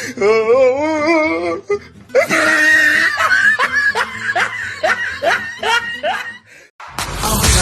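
A person laughing in a rapid run of short bursts, about three a second, after a brief wavering vocal sound. Near the end a loud, noisy sound cuts in suddenly.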